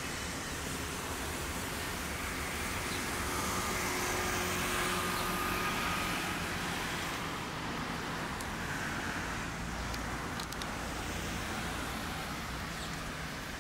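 Steady city road traffic: a continuous hum of passing cars that swells a little about four to six seconds in.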